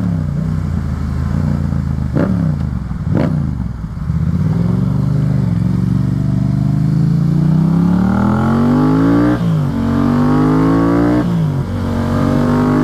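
Yamaha FZ-07's 689 cc parallel-twin engine pulling hard through the gears, exhaust note from its Yoshimura pipe. The pitch climbs steadily for about five seconds, drops suddenly at an upshift about nine seconds in, climbs again, and drops at a second upshift about two seconds later.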